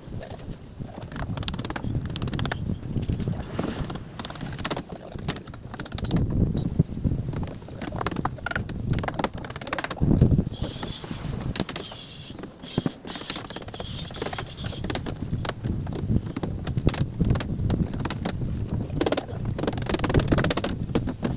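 Construction-site work noise: irregular knocks, clinks and clatter of tools and materials being handled.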